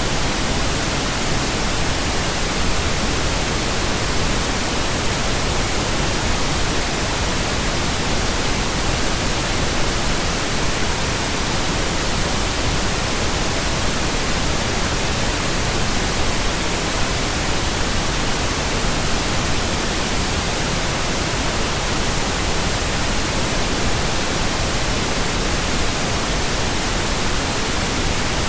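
Continuous synthetic pink noise: a steady, even hiss that never changes.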